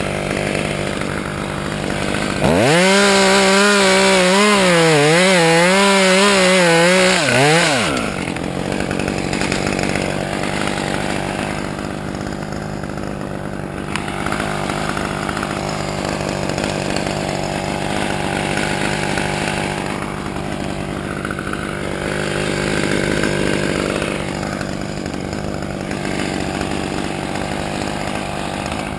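Chainsaw idling steadily, revved hard for about five seconds a couple of seconds in with its pitch wavering as it works through a cut, then dropping back to idle.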